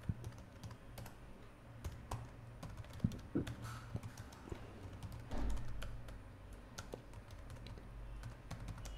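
Computer keyboard being typed on: faint, scattered key clicks over a low steady hum, with a brief low rumble a little past halfway.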